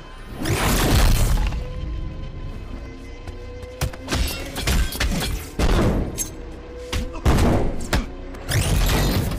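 Dramatic action-film music with a rapid series of fight sound effects: heavy punch and body-impact hits and swishes, the loudest about a second in and a rising swish near the end.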